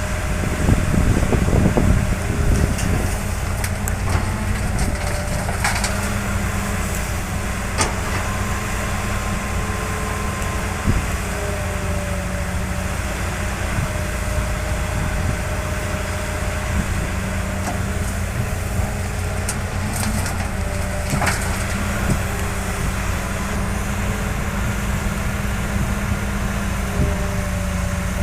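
Heavy diesel engine of construction machinery running steadily at low revs, with a few sharp clicks and knocks. It is louder and rougher for a moment about a second in.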